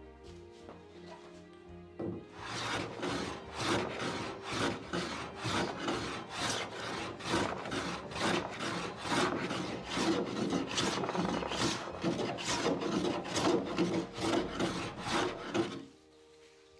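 Rapid back-and-forth hand strokes abrading the wooden door's surface, about two to three a second, starting about two seconds in and stopping shortly before the end. Quiet background music runs underneath.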